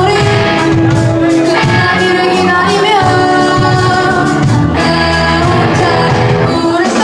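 Live rock band playing a pop song: a woman sings lead over electric guitars, electric bass, keyboard and a drum kit keeping a steady beat.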